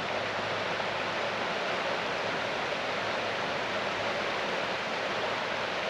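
The Methow River running over a shallow, rocky riffle: a steady rushing of water.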